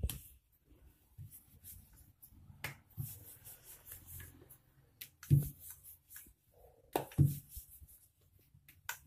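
Wooden rolling pin rolling out a small round of dough on a marble rolling board, with a soft rolling rub and a few sharp knocks of the pin against the stone, the loudest about halfway through.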